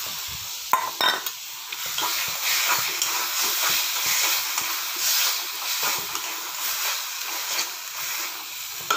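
Spice masala and tomato sizzling in hot oil in a metal kadhai while a spatula stirs and scrapes against the pan. There are a few sharp metal clinks about a second in.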